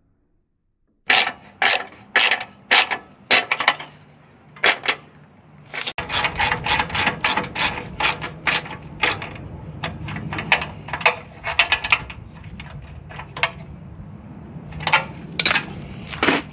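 Hand socket ratchet clicking as a bolt is run through the radiator's mounting bracket: about two clicks a second at first, faster from about six seconds in, then fewer and further apart near the end.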